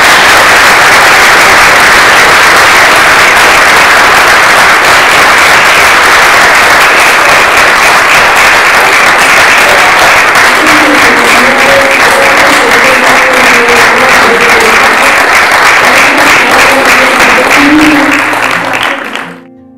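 Audience applauding loudly and steadily, with a few voices faintly heard over the clapping in the second half; the applause fades out near the end.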